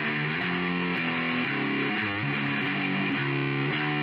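Outro music: a distorted electric guitar playing a riff of changing notes.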